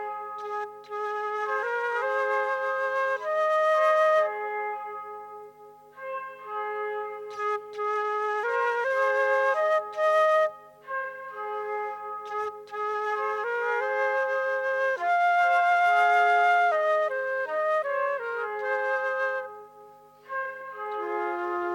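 Solo flute playing a melodic line in phrases with short breaths between them, standing in for the voice of the bird.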